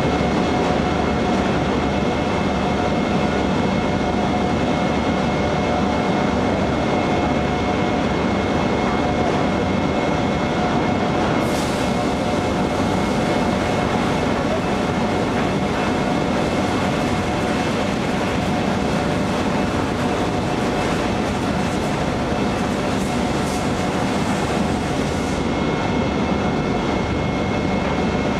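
Steady machinery drone of a powder-coating line and its overhead conveyor, with a few constant whining tones in it. A higher hiss joins partway through and stops a few seconds before the end.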